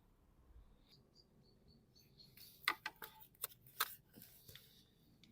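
A quick run of about five sharp plastic clicks and snaps, starting about two and a half seconds in, as a plastic hose connector on the engine is worked loose by hand.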